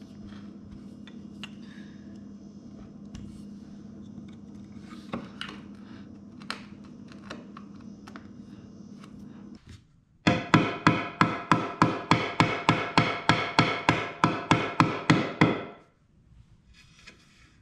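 Chisel working the end of a stopped dado in a cherry board: light scraping with scattered small clicks over a steady low hum. About ten seconds in, after a brief pause, a fast, even run of about twenty-five ringing wooden knocks, four to five a second, lasting some five seconds.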